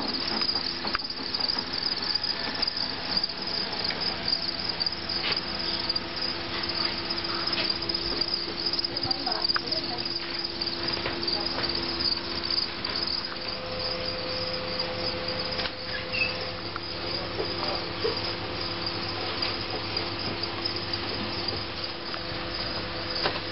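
Many feeder crickets chirping continuously, a steady high-pitched trill, with a steady low hum underneath.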